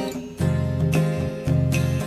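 Instrumental jazz-style music: saxophone phrases over a backing of bass and guitar, with a short dip near the start.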